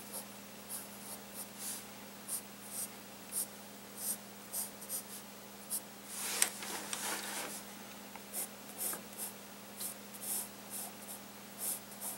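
Pencil drawing on sketchbook paper: a run of short, irregular scratchy strokes, with a longer, denser stretch of strokes about six seconds in. A faint steady low hum runs underneath.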